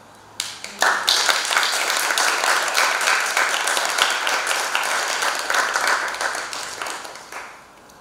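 Audience applauding, many hands clapping. It starts with a few claps about half a second in, swells to full within a second, and dies away shortly before the end.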